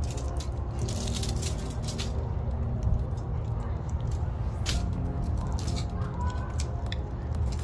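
Crinkling and sharp irregular clicks as a punctured lithium-ion phone battery's foil pouch is handled and pulled open, over a steady low hum.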